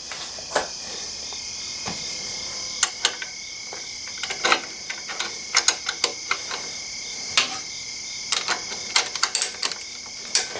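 Scattered light metallic clicks and taps of hand tools and hardware on a motorcycle footpeg bracket as a nylock nut is fitted onto the peg bolt and a ratchet and box wrench are brought to it, with quicker runs of clicks near the end.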